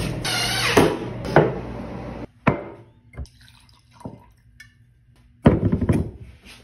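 DeWalt cordless drill running in short bursts as it drives screws, stopping suddenly a little over two seconds in. Then liquor is poured over ice into a glass tumbler, with a few light clinks, and a loud clatter of knocks comes near the end.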